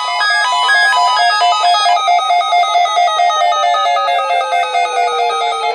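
Electronic music: a fast repeating pattern of short synth notes at several pitches, with long falling pitch sweeps layered over it. It drops in level near the end.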